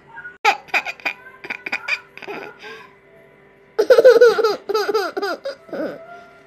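A baby laughing: a string of quick, short giggles, then after a brief pause a louder run of high-pitched laughs, each falling in pitch.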